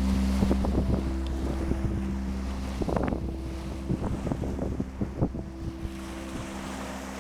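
Sea waves washing and splashing at the shore, with wind buffeting the microphone, over slow held low chords of background music.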